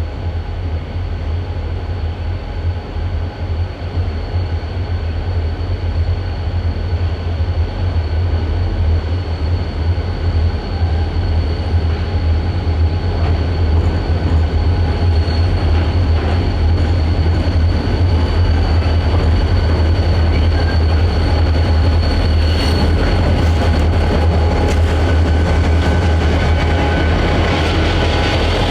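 Diesel-hauled freight train rolling by: a low steady engine rumble and the noise of steel wheels on rail, with a thin steady squeal above them, growing louder throughout.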